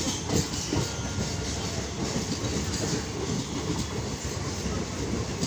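Indian Railways passenger coaches of a departing express rolling steadily past, wheels rumbling on the track, with a few clacks over rail joints in the first half-second.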